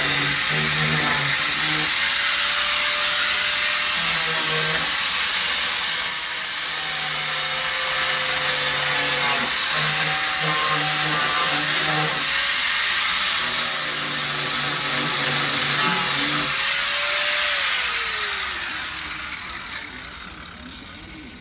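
A handheld electric power tool working fiberglass runs at full speed. Its pitch sags briefly every couple of seconds as it is pressed into the work. About 17 seconds in it is switched off and winds down, its whine falling in pitch and fading.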